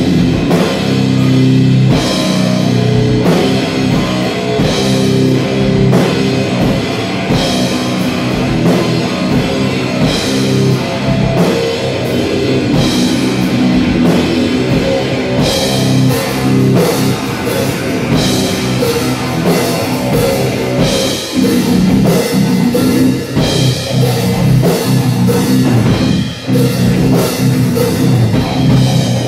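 Live heavy rock: electric guitar playing a riff over a full drum kit, with cymbal crashes every second or two.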